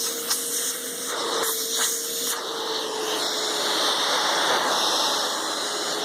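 Hoover Futura canister vacuum running: a steady rush of air through the hose over a faint, even motor whine, with a few sharp clicks of handling in the first two seconds and the hiss changing about two and a half seconds in.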